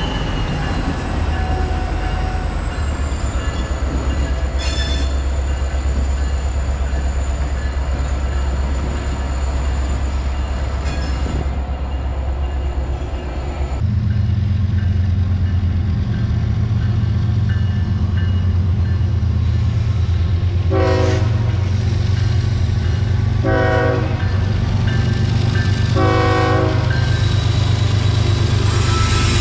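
Norfolk Southern diesel locomotives rumble past with a thin high squeal over the engine noise. Then comes the steady drone of approaching Kansas City Southern diesel locomotives, which sound their air horn in three blasts, at about 21, 24 and 26 seconds, for the grade crossing.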